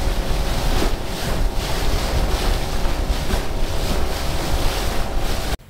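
Wind buffeting the microphone and water rushing past the hull of an aluminium Stabicraft boat running at speed, over the low rumble of its motor. Just before the end it cuts off abruptly to a much quieter scene.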